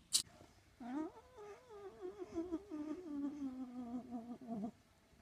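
Tabby domestic cat giving one long, wavering yowl, about four seconds long, that starts about a second in, slides down in pitch and lifts briefly just before it stops.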